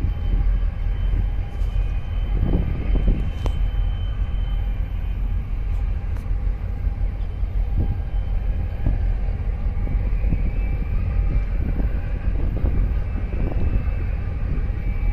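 Steady low engine rumble from the boat carrying the recorder, with wind gusting against the microphone now and then.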